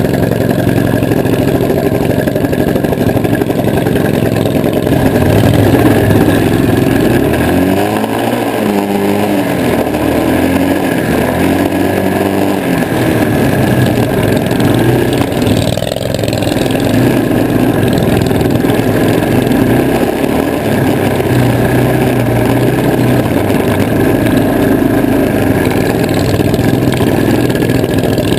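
Engine of a vintage 1970 Hustler 6x6 ATV running steadily while driving over rough trail. About eight seconds in it revs up and down several times, then settles back to steady running.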